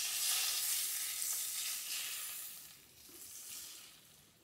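Piping-hot browned butter sizzling as it is poured from a frying pan onto chopped fresh tomatoes. The sizzle fades away, with a brief swell a little after three seconds before dying out near the end.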